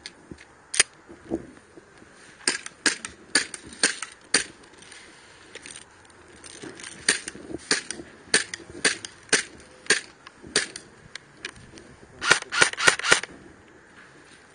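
Airsoft guns firing sharp single shots at irregular intervals, then a quick string of about seven shots near the end.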